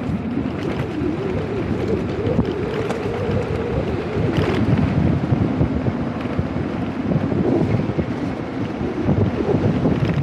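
Wind buffeting the camera's microphone as a mountain bike rides at speed: a loud, steady rushing rumble.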